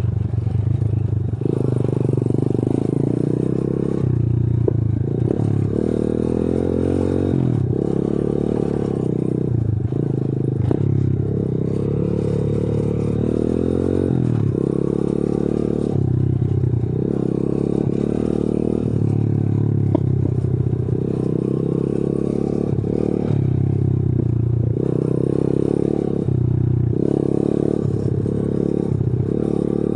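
Single-cylinder four-stroke engine of a 125 cc pit bike running under throttle on a rough dirt trail, its revs rising and falling again and again. The bike rattles and knocks over the bumps.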